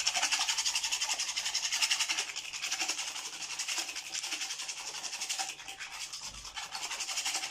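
Rapid, even scratchy strokes, several a second, from egg wash being worked for the top of a puff-pastry pie. The strokes ease off somewhat after about five and a half seconds.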